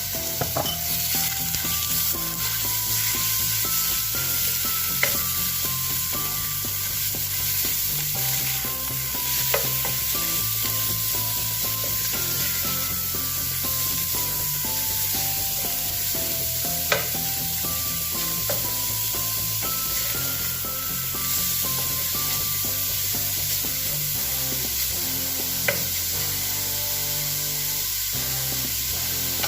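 Food sizzling as it fries in a pan while it is stirred, with a few sharp clicks of the utensil against the pan. A tune with a steady bass line plays underneath.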